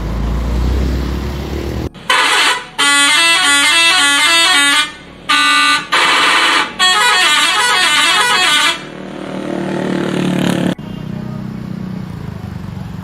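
Bus's Basuri telolet horn playing a fast tune of quickly stepping notes in several loud bursts, starting about two seconds in and ending near nine seconds. The bus engine rumbles underneath before and after.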